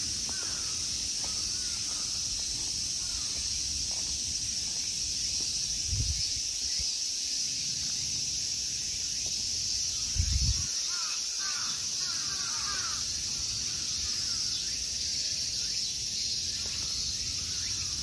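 Steady high-pitched chorus of summer insects, with a few short bird calls about twelve seconds in and a low thump about ten seconds in.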